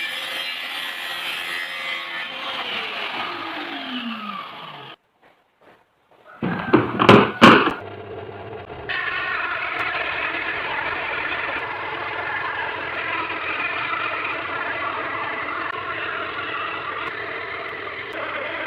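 Electric power tool motor running, then winding down with a falling pitch and stopping; a few loud knocks follow, and the motor runs steadily again.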